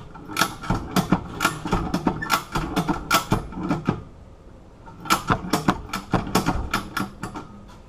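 Ratchet strap being cranked in two runs of sharp clicks, about three a second, with a short pause between, tightening to force bolt cutter jaws closed on a padlock shackle.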